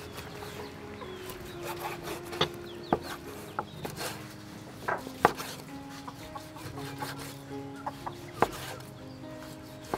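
Cleaver chopping raw pork on a wooden cutting board: a handful of sharp, irregularly spaced knocks as the blade cuts through the meat and hits the board.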